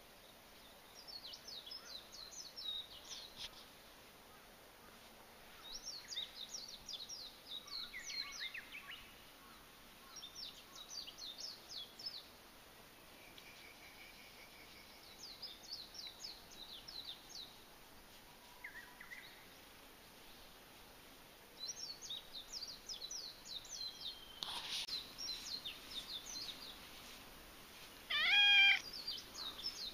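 Small birds twittering in short bursts of high chirps every few seconds. About a second before the end, a stray orange tabby cat being stroked gives one short, loud meow.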